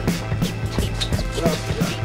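Background hip-hop music with a steady beat.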